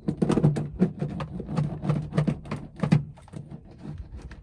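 Hand roller pressed back and forth over butyl-and-foil sound-deadening mat on a car floor: quick irregular rolling, clicking and crinkling, busy at first and easing off about three seconds in.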